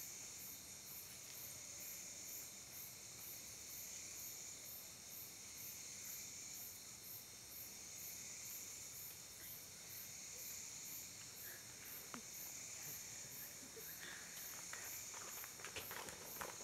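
Crickets and other night insects chirring steadily, a high continuous trill with a faint pulse about twice a second. Near the end, footsteps on the paved road grow louder as people run closer.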